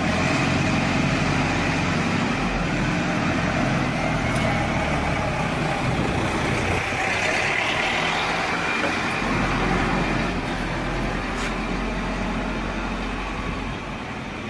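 Steady mechanical rumble and hiss of a heavy-industry machine shop floor, with a faint click or two, easing slightly near the end.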